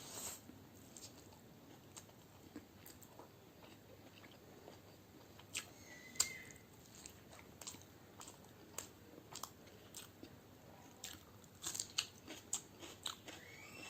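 Close-miked eating: a person biting and chewing egg biryani with raw onion and chilli, with crunchy bites and many small wet mouth clicks. A short high squeak sounds about six seconds in, and another that rises and falls comes near the end.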